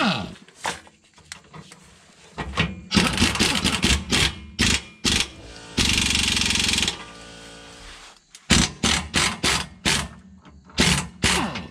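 Pneumatic impact wrench driving the lower shock-absorber bolt back in, running in a series of short hammering bursts with one longer steady run of about a second midway.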